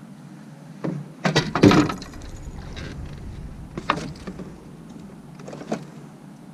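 Gear knocking and rattling in a fishing boat: a clattering run of knocks about a second and a half in, the loudest, then single knocks near four and six seconds in.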